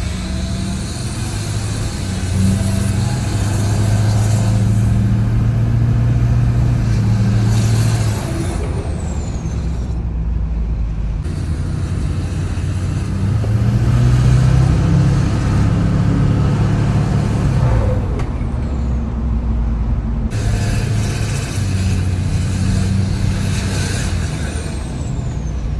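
Straight-piped Duramax turbo-diesel V8 in a Chevy/GMC 2500 pickup, its revs rising and falling three times. Each time a loud, high-pitched turbo whistle climbs, holds, then falls away as the engine drops back.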